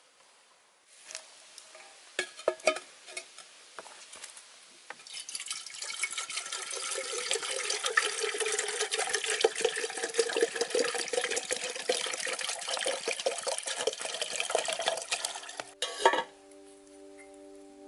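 Water poured from a plastic bottle into a metal kettle on a fire: a steady pour lasting about ten seconds, after a few light knocks and clicks of handling. Near the end a sharp metal clink as the top pot of a stacked double teapot is set on the kettle.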